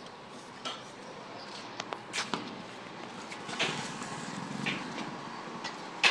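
Scattered short knocks and clinks, like small hard objects being handled and set down, over a steady low background noise; the sharpest knock comes near the end.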